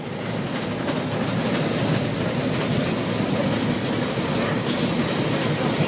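Train running at speed, heard from inside a passenger carriage: a steady rumble of wheels on the rails, growing louder over the first second or two.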